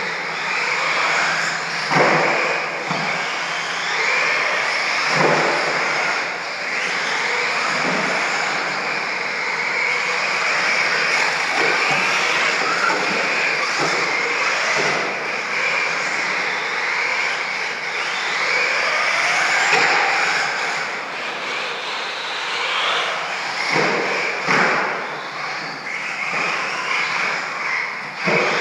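Radio-controlled stadium trucks running laps on a dirt track: a steady whine of their motors with tyres rushing over the dirt, pitch rising and falling with the throttle, and several sharp knocks along the way.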